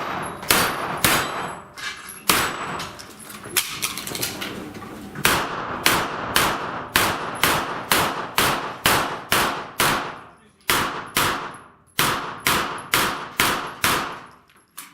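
A string of gunshots at steel plate targets, with clangs of hits on steel: a few quick shots at the start, a slower stretch, then steady fast shooting at about two to three shots a second from about five seconds in, with two brief pauses near the end.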